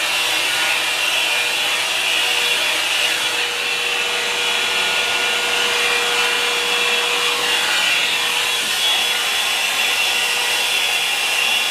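Handheld hot air brush, a dryer with a round brush attachment, blowing steadily as it is worked through hair: an even rushing hiss with a faint motor tone that fades out about eight seconds in.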